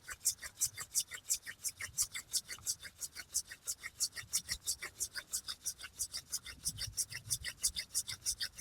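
Wooden hand drill spindle spinning back and forth in the hearth board's socket, squeaking in rapid, evenly spaced strokes, about five a second. The friction is heating the board and spindle and building up the dust for an ember.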